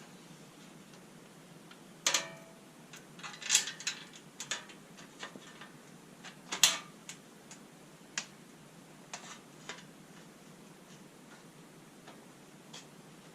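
Irregular clicks and clinks of bolts and a door insert panel being handled and fitted by hand, with sharper knocks about two, three and a half, and six and a half seconds in.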